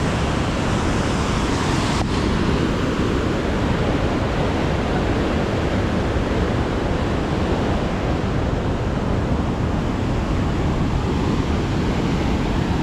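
White water rushing steadily through an anicut's spill gate, a continuous even rush of falling water.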